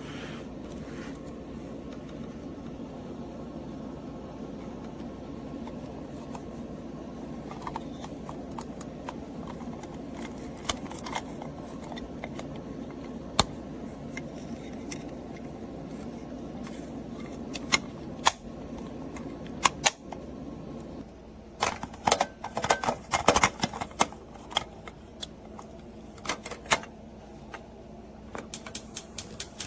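Hard plastic clicks of stove knob covers being flicked open and snapped shut: scattered single clicks, then a quick flurry about two-thirds of the way through. A steady low hum runs underneath.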